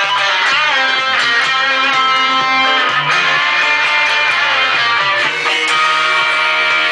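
Telecaster-style electric guitar strummed with a pick, playing a rock and roll rhythm part within continuous loud music.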